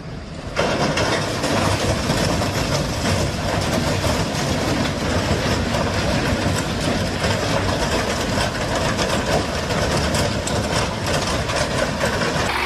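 A heavy vehicle's engine running loudly and steadily, cutting in abruptly about half a second in.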